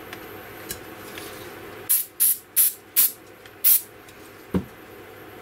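Aerosol CA glue accelerator (kicker) sprayed in five short hisses about half a second apart, curing the cyanoacrylate that tacks a fin to a model rocket body tube. A single knock follows shortly after.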